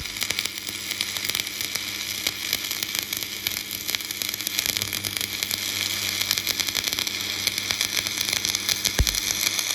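Electric welding arc burning steadily: a continuous crackling hiss. A single low knock about nine seconds in.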